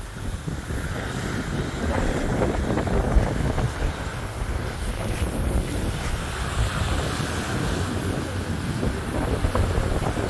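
Wind buffeting the phone's microphone with a steady low rumble, over the hiss of small waves washing onto the sand.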